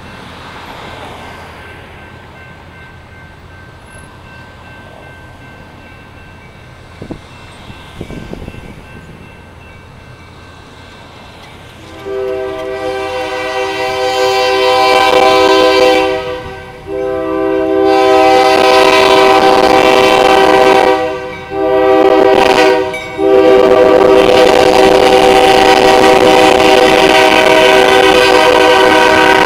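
Locomotive air horn of the Huntsville & Madison County Railroad's EMD SW9 switcher 8933, sounding the grade-crossing signal: two long blasts, a short one and a final long one, starting about twelve seconds in. Before the horn there is only lower-level road traffic.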